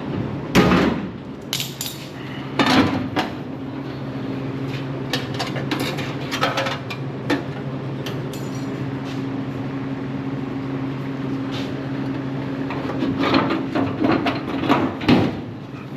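Laser cutting machine running with a steady hum while cutting sheet-metal body panel. Several sharp metallic knocks and clanks come over it, a few early on and a cluster near the end.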